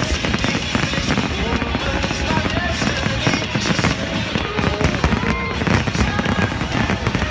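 Fireworks finale: a dense, unbroken barrage of bangs and crackling bursts, with short tones rising and falling over it every second or so.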